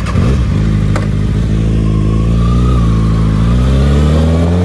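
Kawasaki ZX-6R's inline-four engine pulling away from a stop. The engine note holds steady, then rises in pitch through the last second or so.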